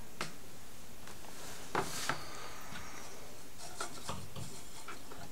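Handling noise: a few soft knocks and rubbing sounds, two of them close together about two seconds in and a small cluster near four seconds, over a steady hiss.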